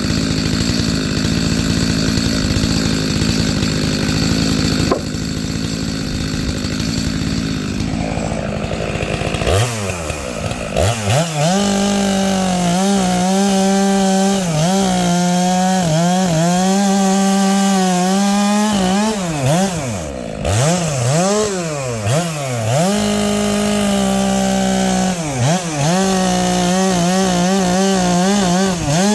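Stihl MS 462 two-stroke chainsaw with a ripping chain, running at full throttle while ripping firewood along the grain. For the first several seconds it labours under load, with a rough, lower note. From about ten seconds in, its pitch dips and climbs again and again between long steady high-rev stretches.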